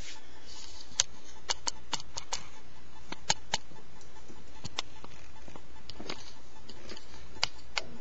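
Pet ferrets playing, making scattered light clicks and taps at irregular intervals, a few close together and others a second or more apart.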